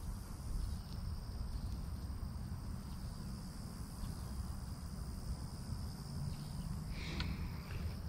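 Steady high insect drone, one thin unbroken tone, over a steady low rumble.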